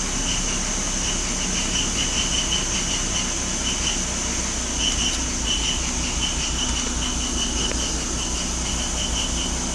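BMW E46 325i's 2.5-litre M54 inline-six idling roughly in drive, heard from inside the cabin with a fan hiss: an uneven low throb with an on-off high chirp. It is the idle hesitation and misfire-like shake that the owner puts down to a bad crankcase oil separator, DISA flapper, dirty injectors or idle air valve.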